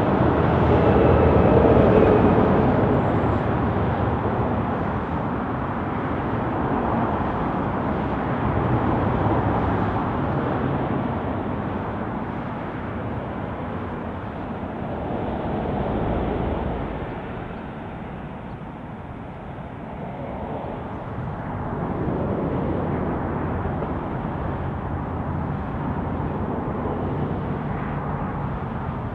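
Airbus A380's four jet engines running at low taxi power as the airliner rolls along the ground: a steady rushing hum that eases somewhat past the middle and then swells again.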